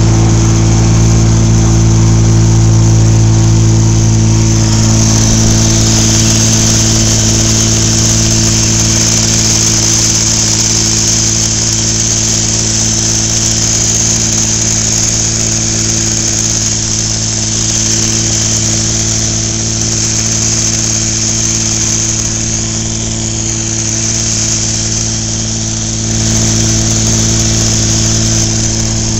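Small outboard motor running at a steady speed, pushing a small boat along, with a hiss of churned water added for most of the middle.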